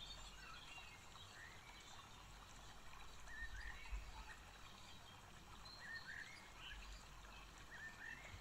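Near silence: faint scattered chirps of distant birds over a low steady hum, with one soft low bump about four seconds in.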